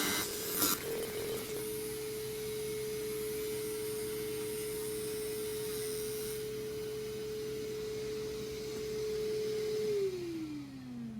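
Dog grooming vacuum running with a steady whine, with a click under a second in. About ten seconds in it is switched off and the pitch falls as the motor winds down.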